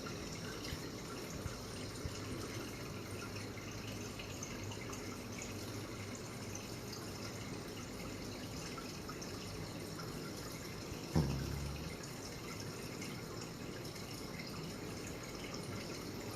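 Faint snoring and breathing of a small pet asleep in a lap, steady with small wet clicks, and one brief low sound about eleven seconds in.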